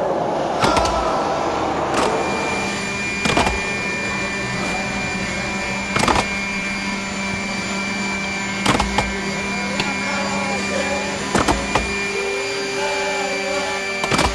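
Electric power tool motor running steadily with a faint high whine, with sharp knocks every few seconds. The hum changes pitch about twelve seconds in, where a random orbital sander is working over louvred wooden shutters.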